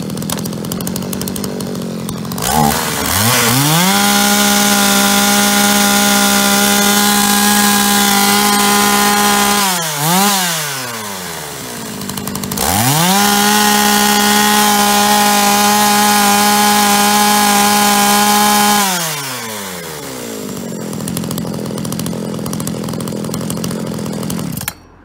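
Zenoah G340AV 33.3 cc two-stroke chainsaw running with the chain free: it idles, then is revved to full throttle and held there for about six seconds, falls back, blips once, and is held at full throttle again for about six seconds. It then returns to idle and cuts off suddenly near the end.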